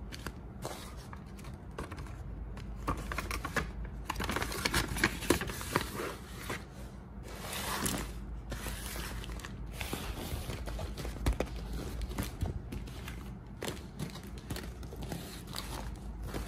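Handmade paper squishies with a glossy tape-like covering crinkling and rustling as they are handled and set down on a pile, with many irregular small crackles and soft knocks.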